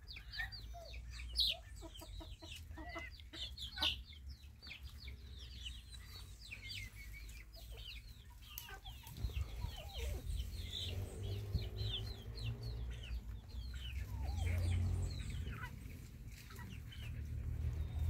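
Young chickens peeping and clucking as they peck at feed, many short high cheeps following one another throughout. A low rumble builds under them near the end.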